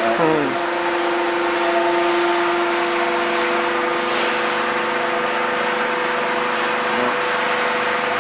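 SH05-HPCNC-150 hydraulic press's pump and motor running, a steady hum and whine over a hiss. Right at the start one tone drops sharply in pitch.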